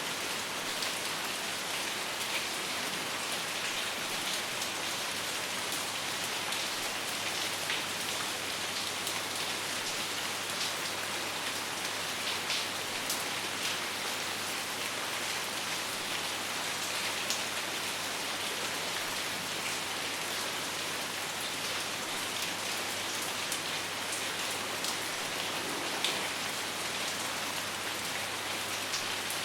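Steady rain falling: an even hiss with many scattered individual drop ticks and no thunder.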